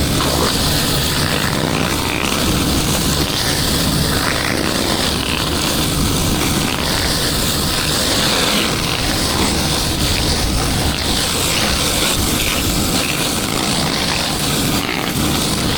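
Pressure washer running steadily, its motor droning under the hiss of high-pressure water spray.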